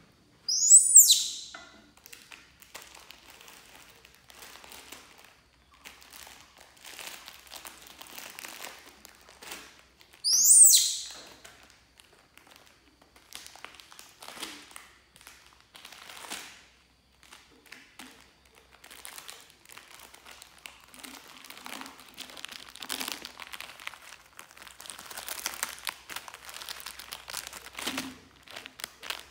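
Baby monkey giving two shrill squeals about ten seconds apart, each falling sharply in pitch. Between and after them come intermittent crinkling and rustling of handling.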